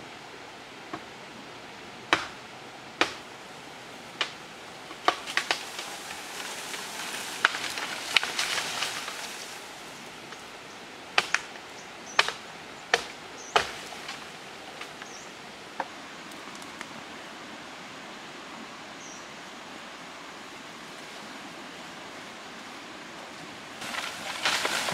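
Irregular sharp knocks of a blade chopping into a bamboo stalk, about a dozen strokes, with rustling of bamboo leaves as the stalk shakes. Near the end, a burst of rustling and scraping as the cut bamboo pole is dragged out through the leaves.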